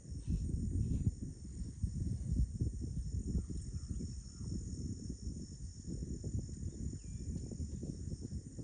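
Steady high-pitched drone of insects, over a low, uneven rumble.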